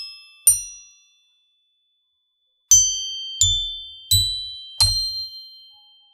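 Water-jet-cut aluminium metallophone plates in animal shapes being struck one at a time: one strike about half a second in, then after a pause four more strikes in quick succession. Each gives a bright, bell-like ring with several high overtones, each at its own pitch, that fades out.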